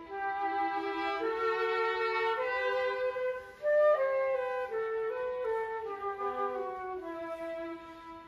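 Flute and violin playing a slow duet in held notes, the flute carrying the melody. Briefly quieter about three and a half seconds in, then a loud accented note.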